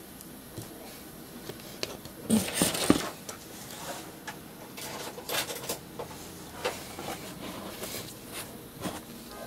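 Cardboard mailer and a vinyl record sleeve being handled as the LP is slid out of its packaging: rustling and scraping of card and paper. The loudest scrape comes about two to three seconds in, followed by scattered short rustles and light taps.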